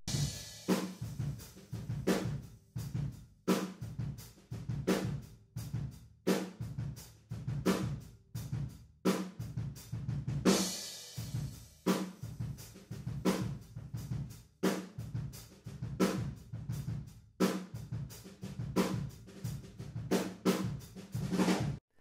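Drum kit playing a steady groove, heard only through a pair of floor room microphones (Neumann TLM-103 large-diaphragm condensers set behind gobos and aimed parallel to the floor), giving a roomy sound with a heavy, carved-out low end. Cymbal crashes ring near the start and about halfway through, and the playback cuts off just before the end.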